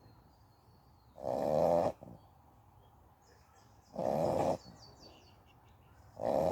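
An American Staffordshire Terrier x Bully XL dog snoring loudly: three snores, each about half a second long, coming roughly every two and a half seconds, the last one near the end.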